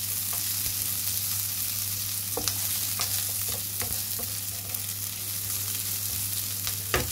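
Chopped garlic, ginger, onion and red bell pepper sizzling in oil in a frying pan, stirred with a wooden spatula that clicks and scrapes against the pan now and then, with a sharper knock near the end. A steady low hum runs underneath.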